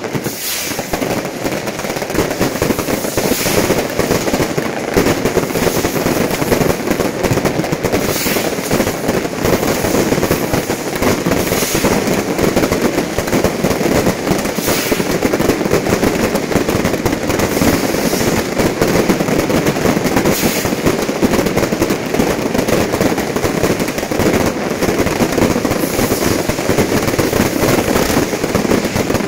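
Fireworks and firecrackers going off without pause: a dense, continuous crackle of rapid pops and bangs.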